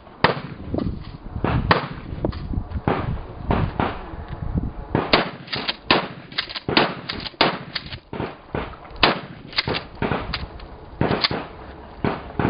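Gunfire at a shooting range: many sharp shots of varying loudness at irregular, uneven spacing, too close together for one pump shotgun, so several guns firing.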